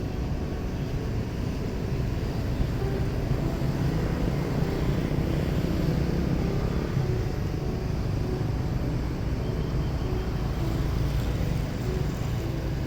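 Airliner jet engines running, heard as a steady low rumble with a faint whine.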